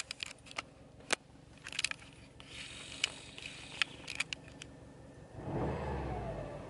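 A few light clicks from the cabin, then, about five seconds in, a Subaru WRX STI's turbocharged flat-four engine starts through its Fujitsubo Authorize RM single-tip cat-back exhaust. It flares to about 2,500 rpm and begins to settle, as heard from inside the cabin.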